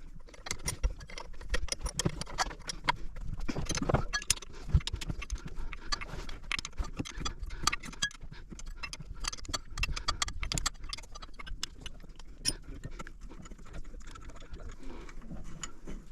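Irregular metallic clicks, knocks and clinks of hand tools and fittings being worked while a sailboat inboard's raw water pump is unbolted.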